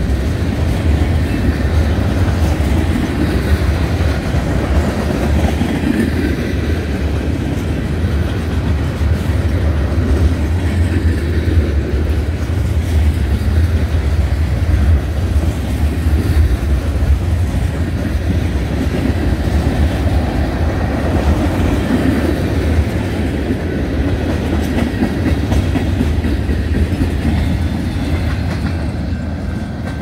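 Freight train cars (tank cars and covered hoppers) rolling past close by, a steady low rumble of the wheels on the rails that eases off slightly near the end.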